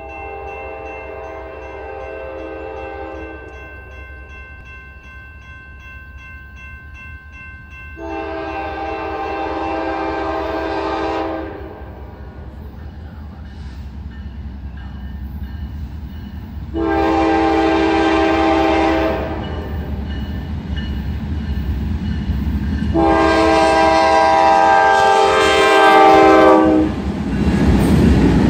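Norfolk Southern freight locomotive horn sounding four blasts in a long, long, short, long pattern, the grade-crossing signal. Under it, the low rumble of the approaching diesel locomotives grows steadily louder until they pass close by near the end.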